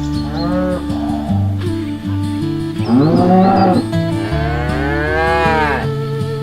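Cattle mooing three times over background music; the last moo, starting about four seconds in, is the longest.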